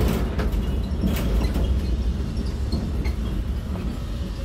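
Low, steady rumble of a moving electric road train (the rubber-tyred 'elephant train') heard from inside one of its carriages, with scattered rattles and clicks from the carriage.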